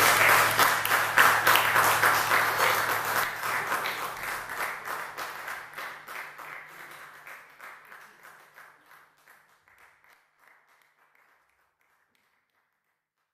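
Audience applauding in a hall, loud at first and fading away over about ten seconds, with a faint low hum underneath during the first part.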